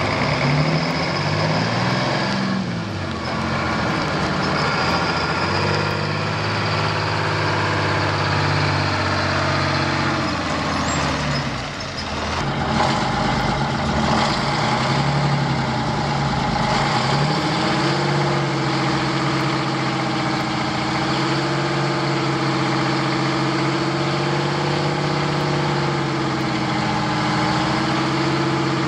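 1979 Ford 9000 truck engine running, its pitch rising and falling in the first half, then holding steady a little past halfway while the hydraulic hoist raises the dump bed.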